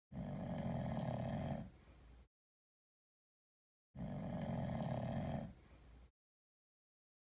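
A sleeping cat snoring with a human-like snore. There are two rattling snores about four seconds apart, each strong for a second and a half and then trailing off softly, with dead silence between them.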